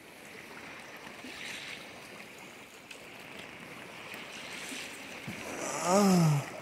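Steady wash of sea surf on a beach. About six seconds in, a man gives one short voiced sound.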